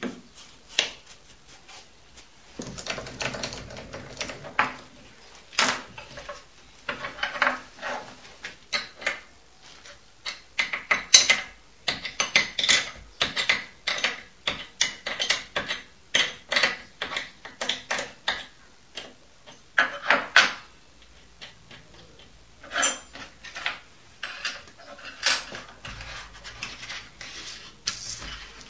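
Irregular clinks, taps and short scrapes of small metal parts and tools handled against a mini lathe's bed and feet, with a dense run of quick clinks in the middle, as steel shims are fitted under the lathe's feet to level it.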